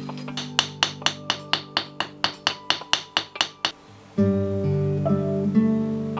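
Acoustic guitar music: sustained notes under a quick run of short, sharp strums, about four a second, then a new chord rings out about four seconds in.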